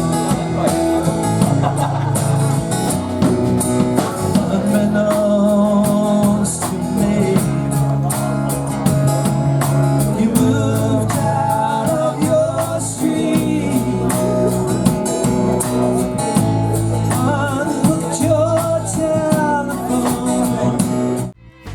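Background music: a song with a singing voice over guitar and a steady accompaniment, breaking off briefly near the end.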